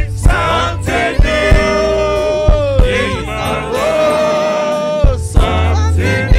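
Gospel worship music: a voice holding long, wavering sung notes over a steady bass line and regular drum hits.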